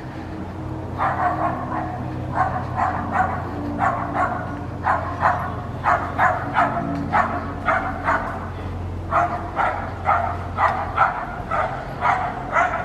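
A dog barking repeatedly, about two short barks a second in runs with brief pauses, starting about a second in, over a low steady hum.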